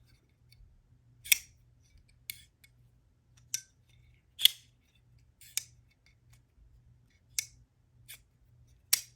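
Vosteed Ankylo folding knife being opened and closed by hand: sharp metallic clicks of the blade snapping open and locking or closing, about eight of them at irregular intervals of roughly a second.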